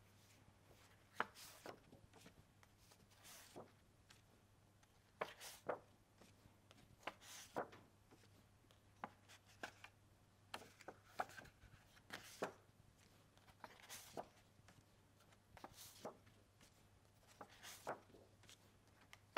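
Near silence broken by soft taps and rustles of card flashcards being swapped by hand, usually in pairs about every two seconds, over a faint steady low hum.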